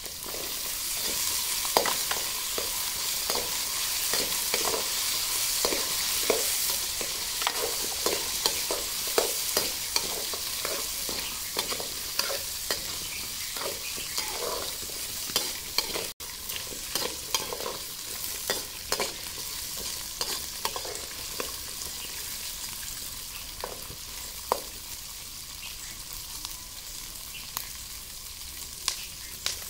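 Small onions sizzling in hot oil in a steel kadai over a wood fire, with a steel ladle scraping and knocking against the pan as they are stirred. The stirring strokes come thick and fast in the first half and thin out later, over a steady sizzle.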